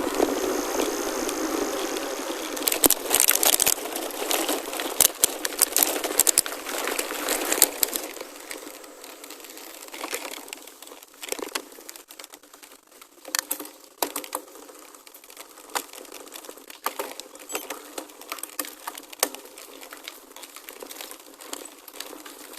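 Gravel bike tyres crunching and crackling over a loose gravel track, with many sharp clicks and rattles. It is dense and loud for the first eight seconds or so, then thins to scattered clicks and goes quieter.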